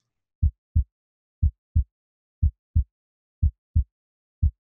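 A heartbeat sound: a low double thump, lub-dub, repeating steadily about once a second, five beats in all.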